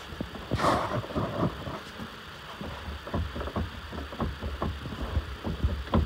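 Boat's rotary steering helm being turned by hand to draw the steering cable in, giving a run of irregular low knocks and thumps, with a brief rustle about half a second in.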